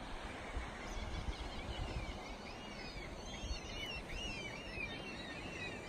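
Small birds chirping, a string of short notes that rise and fall, over wind rumbling on the microphone.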